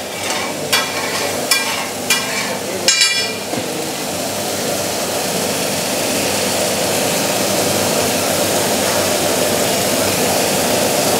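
Magaz (goat brain) in tomato-onion gravy sizzling on a large iron tawa. A metal spatula scrapes and knocks on the tawa about four times in the first three seconds, the last with a short rattle, and then the gravy sizzles steadily, getting a little louder toward the end.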